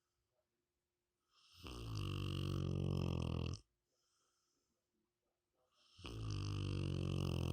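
Sleeping Rottweiler snoring: two long, low snores, each about two seconds, the second starting about four seconds after the first, with faint breathing between.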